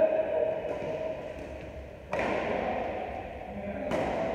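Two sharp racket strikes on a badminton shuttlecock, a little under two seconds apart, each ringing briefly in the echoing hall.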